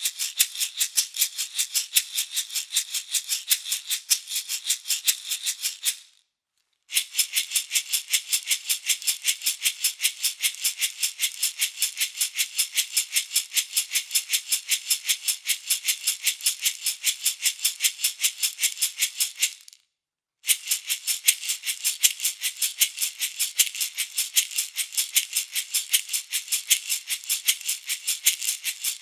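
Meinl SH53-S small wood shaker, a Baltic birch box with zebrano top and bottom, shaken in a steady, even rhythm: a bright, crisp rattle of the fill inside. It stops dead twice, briefly, about six and twenty seconds in.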